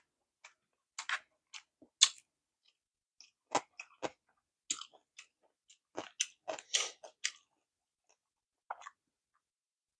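Close-miked eating sounds: short wet mouth clicks of chewing sushi, mixed with taps of chopsticks against a plastic sushi tray. The sounds come as scattered separate clicks and grow busier for a second or so past the middle.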